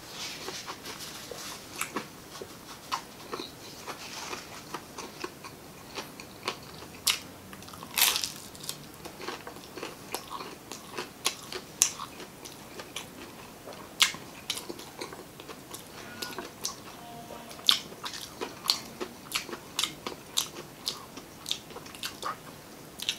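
Close-up chewing and biting of crispy fried chicken skin and adobo chicken gizzards and liver, with irregular sharp crunches throughout; the loudest come about eight, twelve, fourteen and seventeen seconds in.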